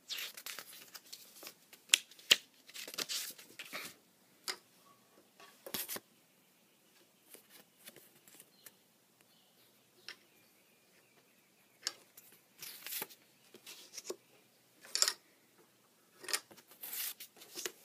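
Paper index cards being handled and swapped close to the microphone: irregular rustles, flicks and light taps of card stock, with quiet gaps between them.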